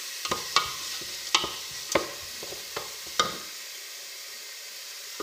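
Chopped onion and whole spices frying in an aluminium pot with a steady sizzle, being cooked to light brown. In the first three seconds a spoon stirring the onions knocks sharply against the pot about five times, then only the sizzle goes on.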